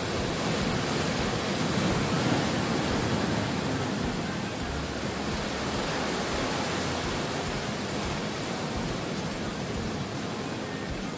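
Steady rushing of sea surf washing on the shore, swelling about two seconds in and then slowly easing.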